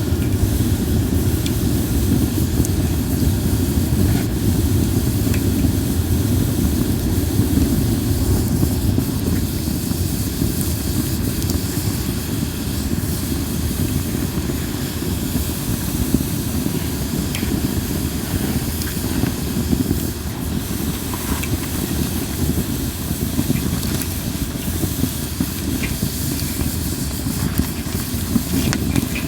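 Linden-wood campfire burning, with a steady low noise from the flames and a few scattered faint crackles.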